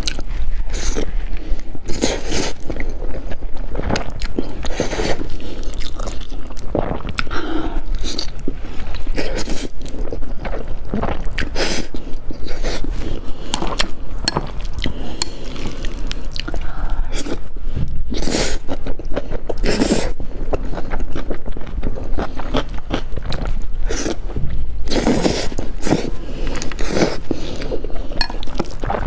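Close-miked eating: repeated chewing and biting, with many short wet mouth smacks and clicks.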